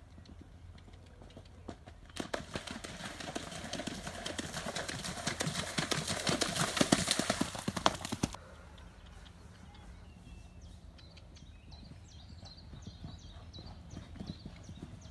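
Pony's hooves splashing through a shallow water crossing at a canter: dense splashing full of sharp hoof strikes that stops suddenly about eight seconds in, followed by quieter, fainter hoofbeats.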